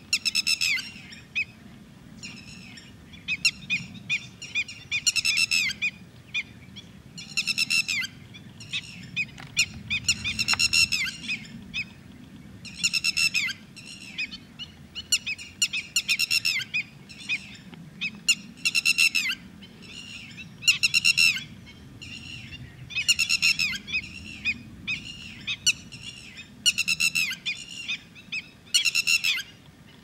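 Red-wattled lapwing calling: loud bursts of rapidly repeated high notes, recurring about every one to two seconds.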